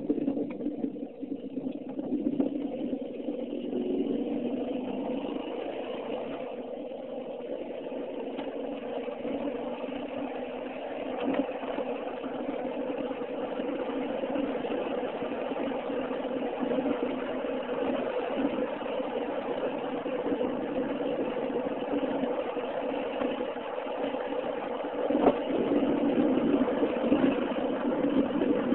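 Car engine and tyre noise heard from inside the cabin while driving, with a steady hum that builds over the first few seconds as the car picks up speed. A single short knock near the end.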